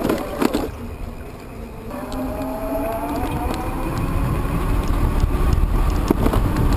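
Electric bike's hub motor whining under power, its pitch rising as the bike speeds up. Wind rumble on the microphone grows louder with the speed in the second half, with a brief rattle just after the start.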